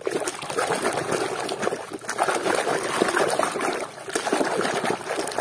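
Muddy water sloshing and splashing in a plastic tub as a hand scrubs a plastic toy car under the surface, churning the water without a break.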